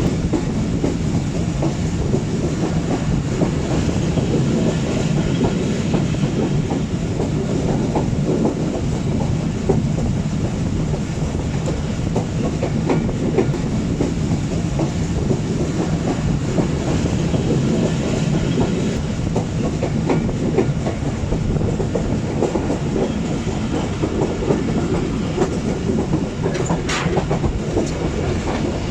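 Passenger train running along the track: a steady rumble of the carriage's wheels on the rails, with a constant irregular clickety-clack.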